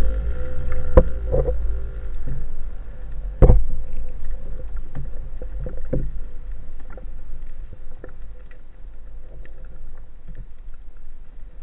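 Muffled underwater sound heard through a camera's waterproof housing: a low rumble of water moving past the housing, with sharp knocks about one second and three and a half seconds in and smaller ones after. It grows quieter over the second half.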